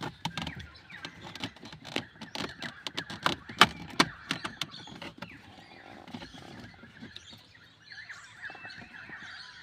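A quick run of sharp clicks and knocks from plastic steering-column trim and the blinker switch being handled, loudest about three and a half seconds in and dying away in the second half. Birds call in the background throughout.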